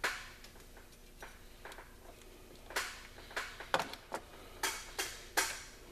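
Irregular sharp metallic clicks and knocks of a socket wrench and extension being handled against an engine accessory pulley and the metal around it, about a dozen taps spread out, a few louder ones in the second half.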